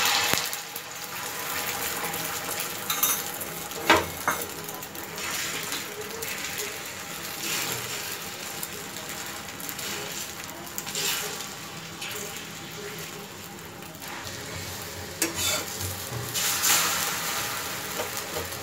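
Beaten egg sizzling as an omelette fries on a hot flat griddle (tawa), with a spatula scraping and knocking against the pan a few times.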